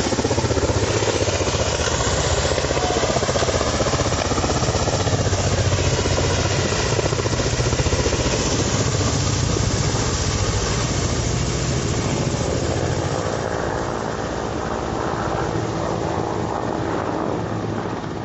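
Ka-52 attack helicopter with coaxial rotors making a low pass: loud, rapidly pulsing rotor noise with turbine noise underneath, sweeping in pitch as it goes by, then easing off over the last few seconds as it flies away.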